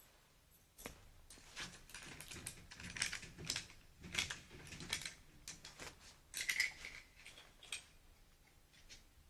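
A key being worked in the lock of a storage-locker door, making a run of small metallic clicks, rattles and scrapes, with one short ringing note near the end.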